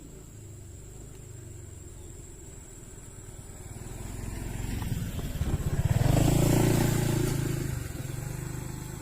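A motor vehicle's engine passing by: a low hum that grows louder for several seconds, peaks about six to seven seconds in, then falls away.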